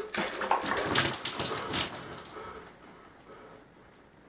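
Water poured from an upturned bottle over a person's head, splashing onto his hat and jacket. The splashing is loudest in the first two seconds and dies away by about three seconds in.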